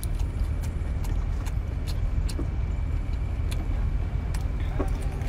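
A person eating: scattered short wet clicks of chewing and lip-smacking over a steady low rumble.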